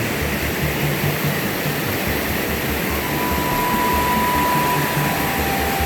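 Steady rush of a jungle river and its waterfalls, with low buffeting on the microphone. About halfway through a thin, steady high tone sounds for a couple of seconds, then a slightly lower one.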